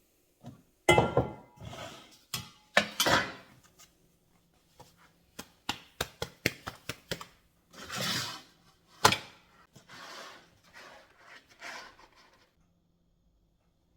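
Kitchen utensils and dishes being handled: a run of sharp knocks and clatters with short scraping strokes on a hard surface, stopping near the end.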